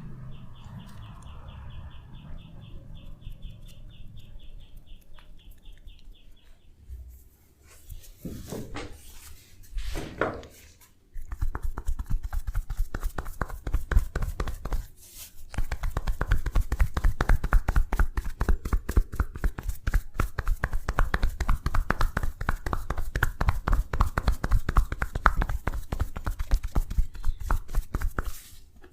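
Rapid, continuous hand tapping of a percussive massage, a fast train of sharp slaps that starts about a third of the way in and grows louder a few seconds later. Before it comes a high, rapidly repeated chirping and a couple of rising rubbing swishes.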